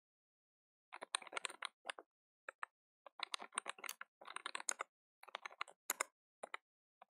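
Quiet computer keyboard typing: quick runs of keystrokes separated by short pauses, starting about a second in, with one sharper keystroke about six seconds in.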